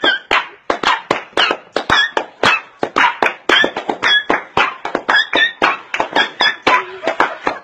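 Upbeat dance music with a fast, steady beat of sharp percussive hits and short high notes.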